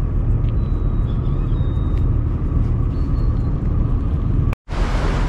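Steady low outdoor rumble with a hiss over it, broken near the end by a split-second drop to silence, after which the hiss is brighter.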